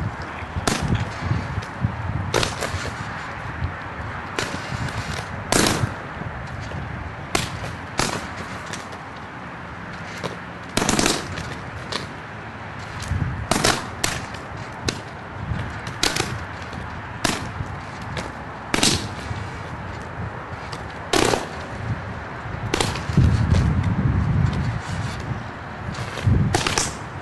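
Overhead power line arcing: irregular sharp electrical cracks every second or two, a few of them drawn out to about half a second.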